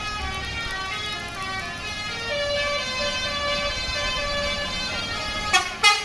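A melody of held tones changing pitch every fraction of a second runs under the scene. Near the end the approaching tour bus sounds two short, loud horn blasts in quick succession.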